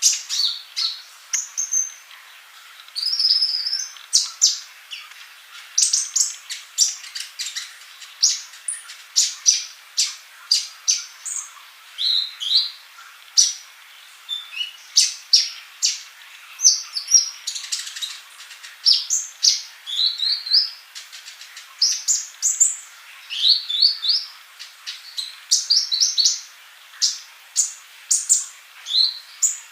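A male kolibri ninja sunbird singing in a steady stream of short, high, sharp chirps and quick rising and falling slurred notes, several to the second with only brief pauses.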